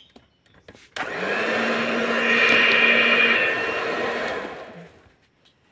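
Electric hand mixer switched on about a second in, its beaters whirring steadily through cake batter in a steel bowl, then winding down and stopping near the end.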